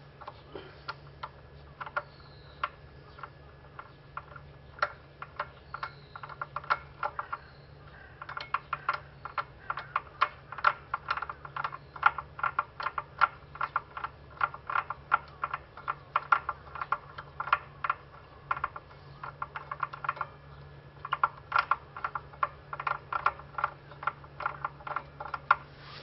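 Quick runs of light, sharp metallic clicking from a ratcheting hand tool at the front hub of a Triumph Hinckley Bonneville, as the small screw holding the speedometer cable is backed out. The clicking is sparse at first, comes thick and fast from about eight seconds in, and pauses briefly near the end.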